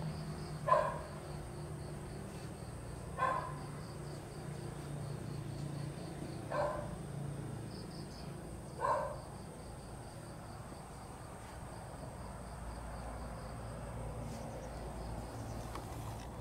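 A dog barking four times, a few seconds apart, with the barks stopping about nine seconds in. Crickets chirp steadily throughout.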